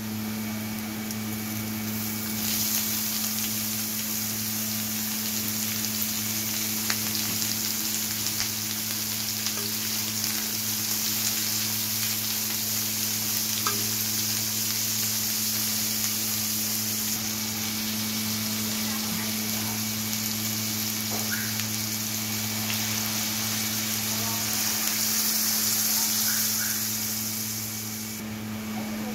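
Octopus pieces frying with onion and garlic in oil in a wok: a steady sizzle that grows louder about two seconds in and dies away near the end, with a few light scrapes and clicks of a spatula against the pan.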